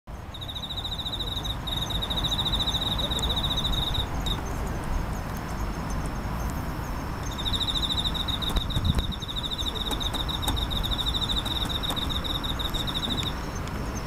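Cricket singing a high, rapidly pulsed trill in two long runs of several seconds, with a pause of about three seconds between them, over a low steady background rumble.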